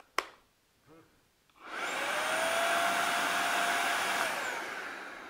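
Wagner FinishControl 4000 18V cordless XVLP paint sprayer's turbine switched on at idle, not spraying. After a short click, it spins up about a second and a half in with a rising whine, runs steadily, then winds down from about four seconds in.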